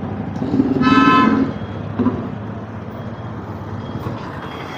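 Street traffic running steadily, with a vehicle horn honking once about a second in, for under a second.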